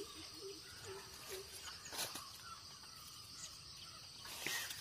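Quiet streamside ambience: a steady high insect hum, with a run of short, low calls from an animal, about four a second, fading out in the first second and a half. Faint brief rustles come about two seconds in and again near the end.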